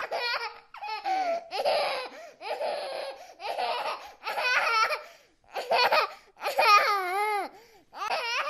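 A baby laughing in a string of giggling bouts, about one a second, with short breaks between them.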